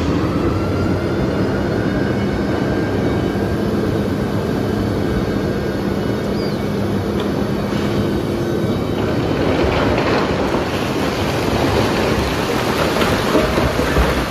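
Kobelco gyratory crusher crushing iron ore: a steady mechanical hum under continuous grinding and rattling of rock. About two-thirds of the way in, the rattling grows denser and louder.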